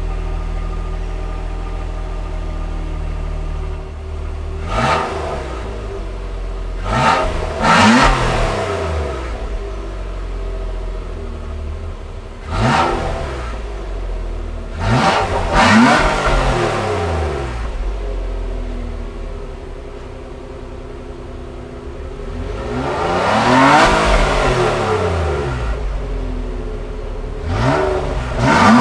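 2017 Nissan Maxima's 3.5-litre V6 heard at the tailpipe, idling and then free-revved in a series of quick throttle blips, about eight in all, each rising and falling back to idle. About two-thirds of the way through it takes one longer, slower rev.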